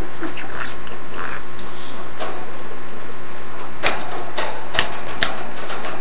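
Budgerigar chattering and warbling, with a few sharp clicks in the second half, over a steady background hum.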